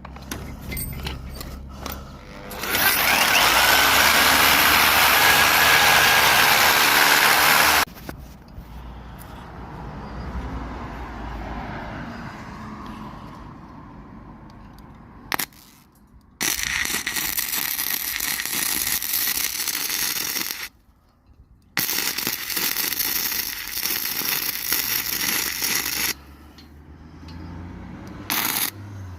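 A power tool's motor running in three bursts of several seconds each, with quieter work sounds in between.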